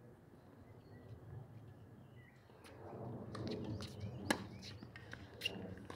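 Tennis ball struck by a racket on a forehand, a sharp pop about four seconds in, followed about a second later by a fainter pop. Faint outdoor ambience with bird chirps underneath.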